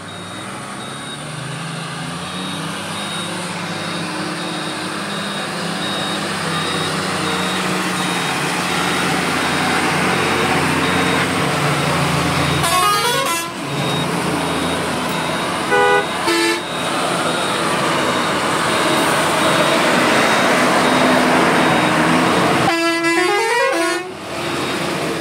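Heavy vehicle's engine running steadily under load on a rough gravel road, heard from inside the cab and building in loudness over the first few seconds. Truck horns sound over it: a multi-note horn that steps in pitch about halfway through and again near the end, and two short toots a few seconds after the first.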